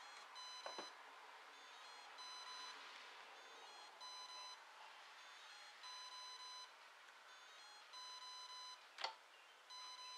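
Brushless ESC programming beeps sounded through the motor: a steady-pitched long beep about every two seconds, with a few short faint chirps between. The ESC is stepping through its brake-setting programming codes. A sharp click about a second in and a louder one near the end.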